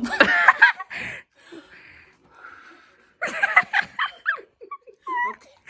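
Women's voices making wordless excited sounds: a loud burst of high vocal cries, a quieter breathy stretch, then a second burst and a few short gliding vocal notes near the end.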